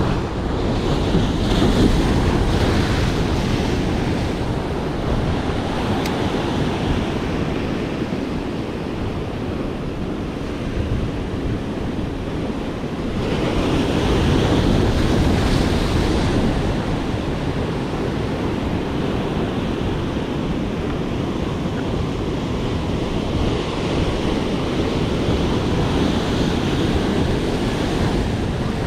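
Ocean surf breaking and washing over a rock jetty, with wind rumbling on the microphone. The surge swells loudest about halfway through as a big wave crashes onto the rocks.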